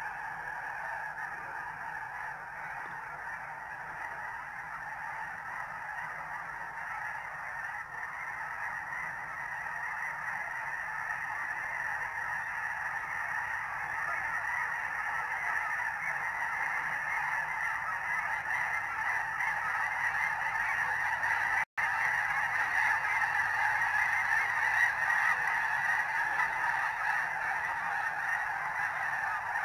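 A large flock of snow geese calling together as it comes in: a dense, continuous chorus of honking that grows gradually louder.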